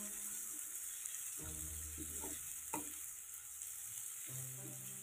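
Sliced shallots, bird's-eye chillies and chopped torch ginger flower sizzling quietly in oil in a wok while a spatula stirs them, with a few short scrapes of the spatula on the pan about two to three seconds in.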